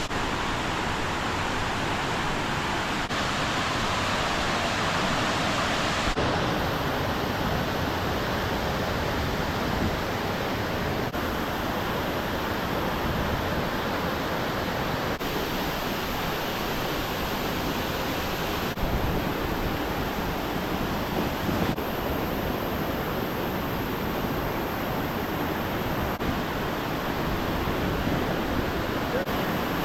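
Waterfall: rushing, falling water making a steady, even roar, its tone shifting slightly at several cuts between clips.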